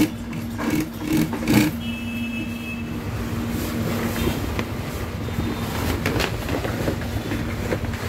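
MADI industrial sewing machine stitching thick waterproof canopy fabric in a few short runs during the first second and a half, then a steady mechanical hum carries on as the heavy cloth is shifted about.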